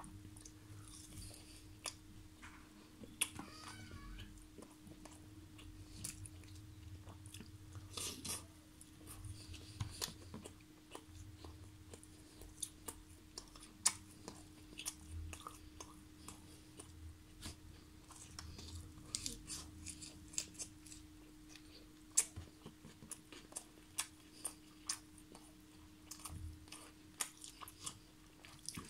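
Close-up mouth sounds of a person chewing a mouthful of tandoori chicken: irregular wet smacks and clicks, with a few louder ones scattered through. A steady faint hum runs underneath.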